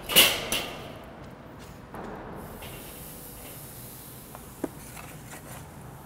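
Raw seasoned chicken breast sizzling on the hot grate of a charcoal kettle grill, a steady hiss that grows brighter a couple of seconds in. It opens with a brief loud burst of noise, and there is one small click about four and a half seconds in.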